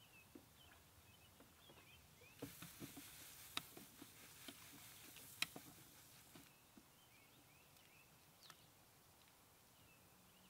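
Crushed malt pouring from a plastic bucket into a cooler mash tun of water, a faint hiss with light knocks of a wooden paddle stirring the mash, starting a couple of seconds in and lasting about four seconds. Faint bird chirps throughout.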